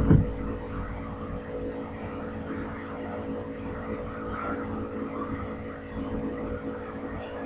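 Steady background hum and noise, with a few constant low tones, opening with a brief low thump.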